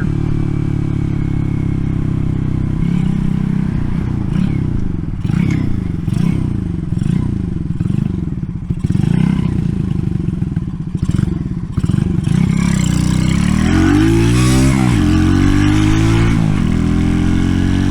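Small pit-bike engine of an RPS Racer 140 running through a stainless steel side-exit exhaust, still on choke while it warms up. Its pitch rises and falls over and over as the throttle is worked, with some clatter, then climbs through the revs near the end.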